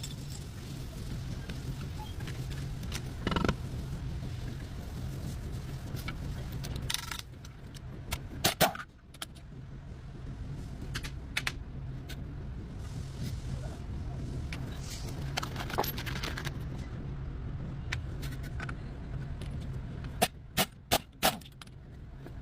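Metallic clinks and taps of hand tools on engine parts over a steady low hum, with a quick run of four clinks near the end.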